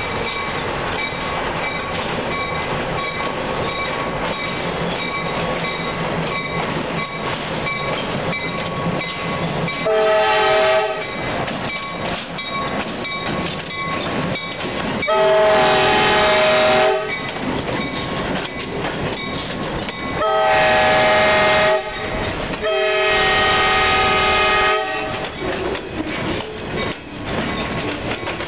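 Pittsburgh & Ohio Central diesel locomotive pulling a freight train of covered hoppers past at close range: engine running and wheels clattering over the rail joints. Its air horn sounds four times, a chord of several notes, the last blast the longest, and the hopper cars keep rolling by after the horn stops.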